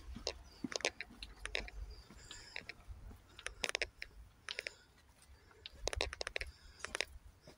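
Footsteps of several people walking on gritty paving, a run of irregular crunching clicks that come in clusters.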